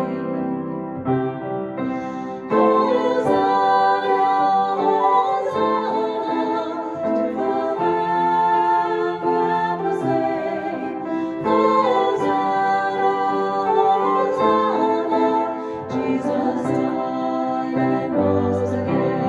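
Live worship song: a woman singing, accompanied by flute and piano.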